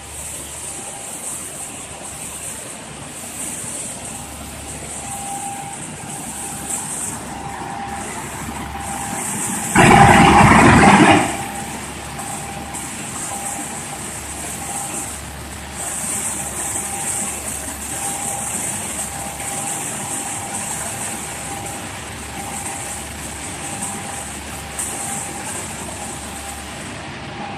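Steel plate shot blasting machine running: steady mechanical noise with a hiss as a plate travels out on the roller conveyor. About ten seconds in a much louder rushing noise lasts about a second and a half.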